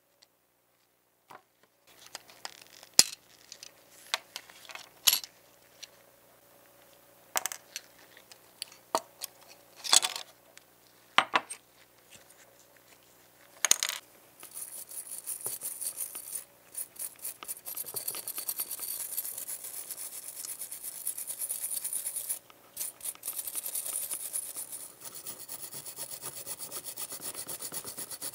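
Small parts of a die-cast model car being handled, with scattered clicks and taps. About halfway through, a brass wire brush starts scrubbing fast against a painted metal part, stripping the old paint, with a short pause near the end.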